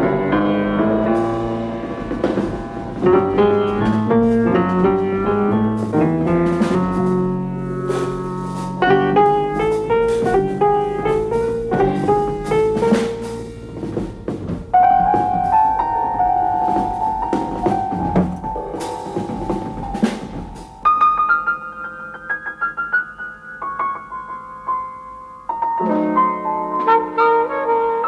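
Jazzy instrumental score with piano, brass and drum kit, busy with quick note runs and sharp percussive hits, thinning to sparser high notes about two-thirds of the way through before fuller chords return near the end.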